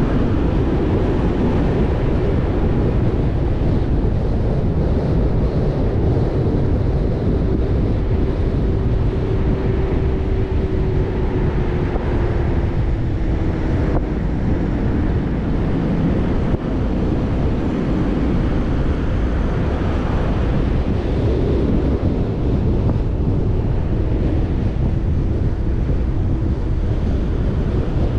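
Jeep Rubicon on the move: steady engine, tyre and road noise with wind buffeting the microphone, the engine note drifting a little up and down.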